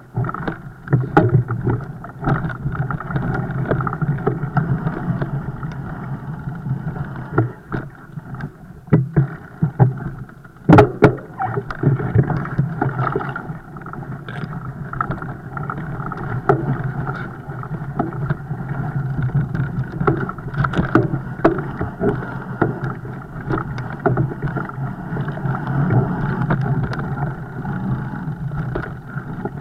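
Fat bike riding over rough ground: a steady, muffled rumble with irregular knocks and rattles throughout, and a sharp knock about eleven seconds in.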